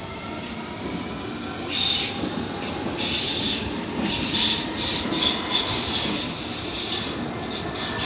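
Electric multiple-unit passenger train running past on the track, with a low rumble of wheels on rail. From about two seconds in, the wheels squeal on and off at a high pitch.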